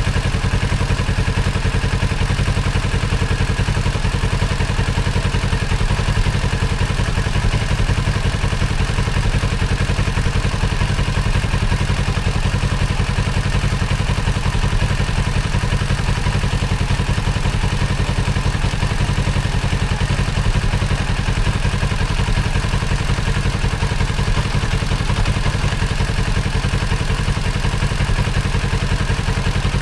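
2024 Kawasaki Z650's parallel-twin engine idling steadily.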